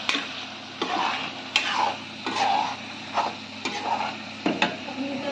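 Metal spatula scraping and knocking against a metal kadhai as thick tomato masala is stirred, a stroke roughly every second, over a steady frying sizzle.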